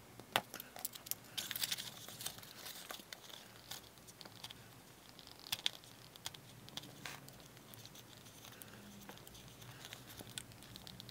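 Hobby knife cutting thin vacuum-formed plastic in a series of small cuts: faint, irregular scratchy snips, with crinkling of the plastic as it is handled.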